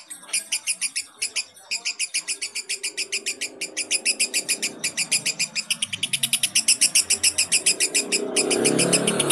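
Lovebird singing its long 'ngekek' chatter: a rapid, unbroken run of shrill, evenly repeated notes with a few brief breaks, growing louder toward the end.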